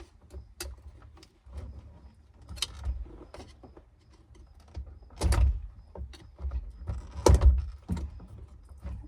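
Scattered clicks and knocks of hands working an NC MX-5's steering-wheel airbag module free, with two louder thuds about five and seven seconds in.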